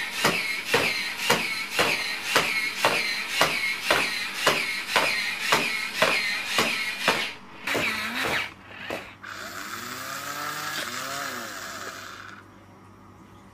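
Six-legged walking robot's servo motors whining, the whine wavering with each stride, and its feet clicking on the hard floor about twice a second. The walking rhythm stops about seven seconds in and a quieter, steadier whirring follows.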